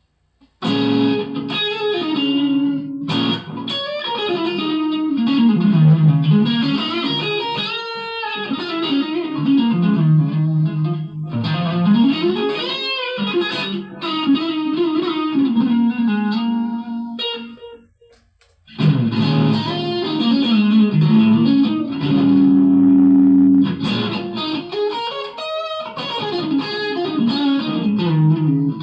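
Electric guitar playing a single-note melodic line with notes that slide up and down in pitch. It stops briefly about two-thirds of the way through, then starts again.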